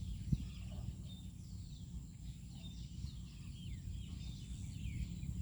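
Birds chirping, many short falling calls one after another, over a steady high whine and a low rumble. A single knock comes just after the start.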